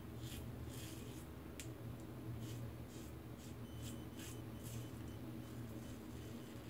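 Faint short scraping strokes of a Rockwell 6C double-edge safety razor with a new blade cutting through lathered stubble, a stroke about every half second, with one sharp click. A steady low hum runs underneath.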